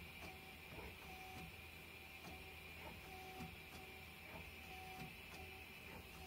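Faint running sound of a Mazak QTN-250MSY CNC turning center as its turret and axes move. A steady high whine runs under a lower tone that cuts in and out about once a second, with light ticks and a low hum.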